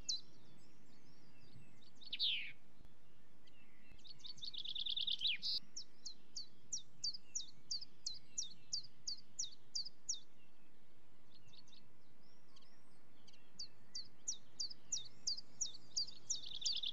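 A songbird singing: short, high falling chirps repeated about three a second in long phrases, with a fast trill and a single long falling call between them, over a steady faint background hiss.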